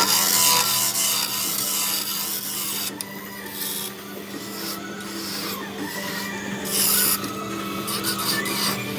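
Wood lathe running with a steady motor hum while a turning tool cuts the spinning wood, the cutting noise coming and going in strokes.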